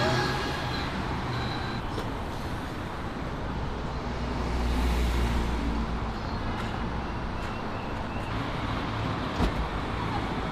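Steady city street traffic: cars and a truck driving past on the road. A vehicle passes close about halfway through with a swell of low rumble and tyre hiss, and a short knock sounds near the end.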